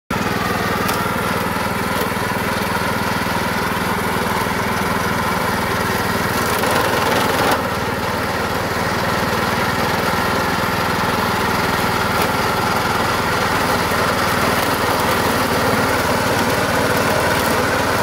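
Homemade remote-control lawn mower with a small petrol engine, running steadily as the mower drives through tall grass. The engine is briefly louder about seven seconds in, then drops back.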